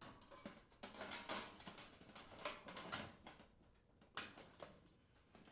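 Faint, irregular clatter, scraping and light knocks as the range's lower rear access panel is handled and set back into position, busiest in the first three seconds, with another brief knock about four seconds in.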